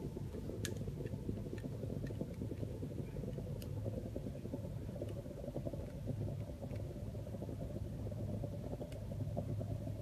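A steady low rumble with a few faint clicks scattered through it.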